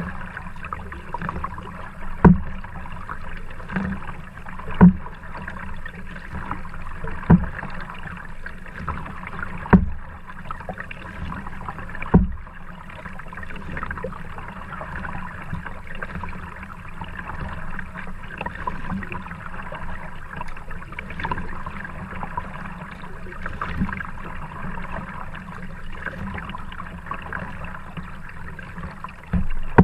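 Kayak paddle strokes: five sharp thumps about two and a half seconds apart, then the kayak glides with only a steady hiss of water and air.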